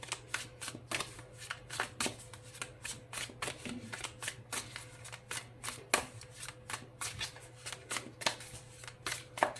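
A tarot deck being shuffled by hand: a continuous run of quick, irregular card slaps and riffles, several a second.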